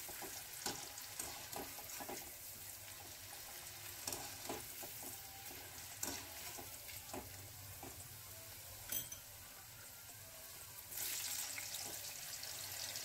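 Potato sticks deep-frying in hot ghee in a kadhai: a steady sizzle full of small pops and crackles, with a few sharper ticks. The hiss grows louder about eleven seconds in.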